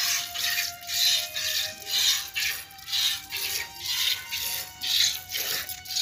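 Background music: a faint melody under a steady rhythm of hissing strokes about twice a second.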